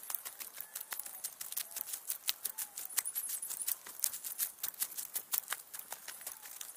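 Footsteps on a gravelly hiking path, sped up into a rapid, irregular patter of crunching steps, several a second.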